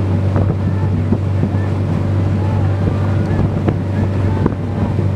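Outboard motor of a zodiac inflatable boat running at a steady, low drone, with wind buffeting the microphone.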